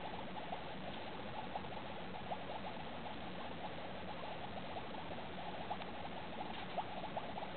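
Dry ice bubbling in a bowl of water: a steady, faint patter of many tiny bubbling pops.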